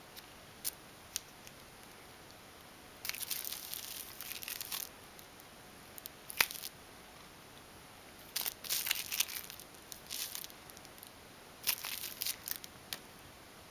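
Scratchy rustling and crinkling as a ragdoll cat swats at a dangled plastic drinking straw and scrabbles its paws on a rug, in three short bouts with a single sharp click midway.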